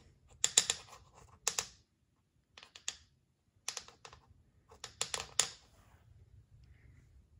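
Plastic toothbrush tapped and scratched against a wooden floor, in five short bursts of quick clicking.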